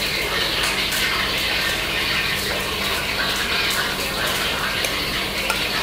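A steady rushing hiss like running water, with faint light scraping and ticking of a wire whisk stirring dry flour in a ceramic plate.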